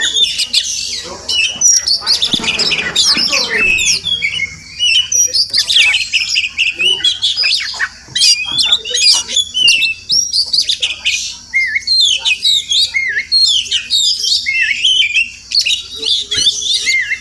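Oriental magpie-robin singing a long, continuous run of rapid, varied whistled notes, chirps and short pitch glides.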